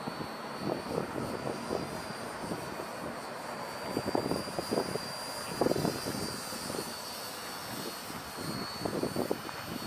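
The twin brushed electric motors and three-blade props of an EasySky micro P-38 RC plane whine in flight, a thin high steady pitch that wavers slightly as the plane moves. Irregular gusts of wind buffet the microphone.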